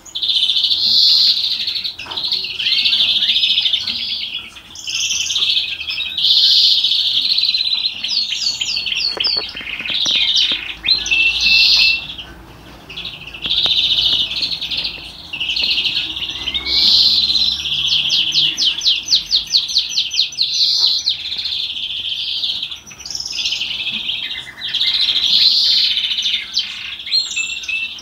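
Florya canary singing in the Turkish salma style: long, free-flowing phrases of fast trills and rattling rolls, with a brief lull about twelve seconds in and a long, even rapid trill a few seconds later.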